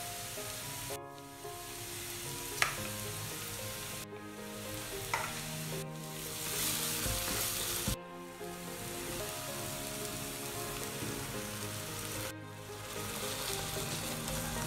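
Onions and spices sizzling in a nonstick pan while a wooden spatula stirs them, with a few sharp knocks of the spatula. The sizzle drops out abruptly several times.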